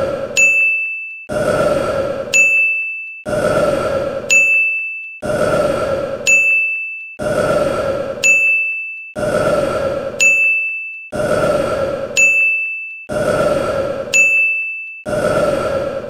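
A man's long burp followed at once by a bright ding, the pair repeating in a loop about every two seconds.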